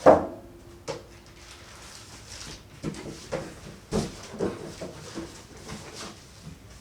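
Packaging and monitor accessories being handled and set down on a table: a sharp knock at the start that rings briefly, then a series of softer clicks and taps.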